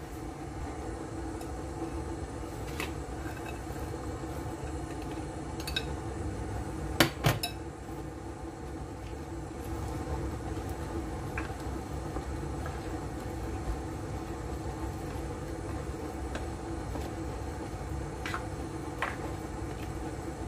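A black spatula knocks and scrapes in a stew pan as yardlong beans are stirred into the sauce. There are a handful of scattered clicks, the loudest pair about seven seconds in, over a steady low hum.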